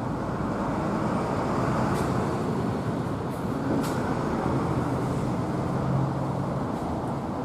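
Steady rumble of road traffic, with two faint short high ticks partway through.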